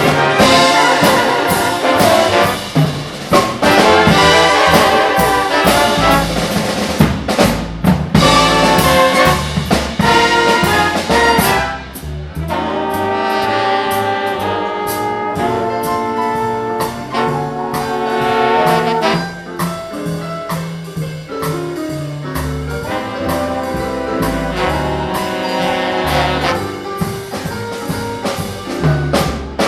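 A live big band playing swing, with trumpets and trombones over a walking bass and drums. The music is loud and full for the first twelve seconds, then settles a little quieter.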